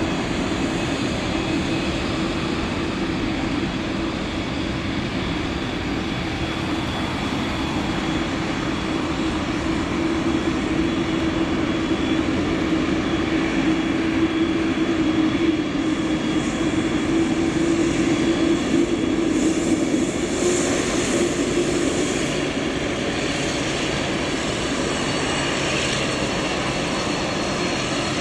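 Boeing 787-9 airliner's twin turbofan engines at taxi power: a steady rumble with a held hum, growing louder with a higher hiss in the middle as the plane passes, then easing off near the end.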